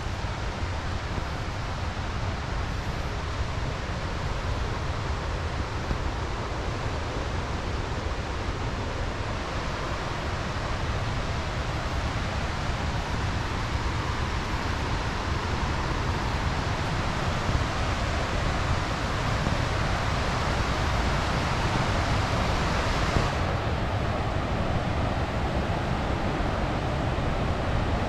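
Steady rushing roar of Helmcken Falls, a big waterfall heard from the trail above it, growing slowly louder. The high hiss drops off abruptly about three-quarters of the way through.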